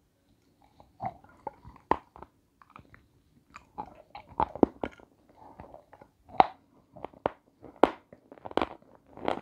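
A person biting and chewing a crunchy, snow-white block close to a clip-on microphone: a run of sharp, irregular crunches.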